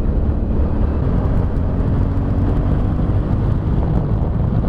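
Suzuki SV650S V-twin engine running at a steady cruising speed while riding, mixed with wind noise on the microphone.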